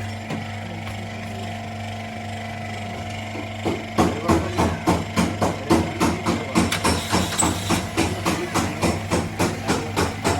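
A steady low hum for about the first four seconds, then a regular run of sharp knocks, about two to three a second.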